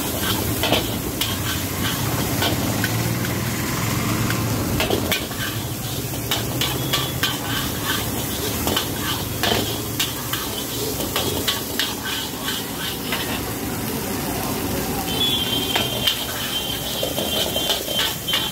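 Metal spatula scraping and clanking against a large iron wok as fried rice is tossed and stir-fried, over a steady sizzle. Short sharp scrapes and knocks come irregularly throughout, and a high steady whine joins near the end.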